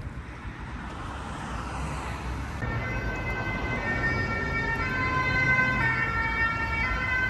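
An emergency vehicle's siren sounds in held notes that step between pitches, over the rumble of road traffic. It comes in about two and a half seconds in.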